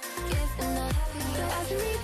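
Background pop music with a steady electronic beat and deep bass hits that drop in pitch.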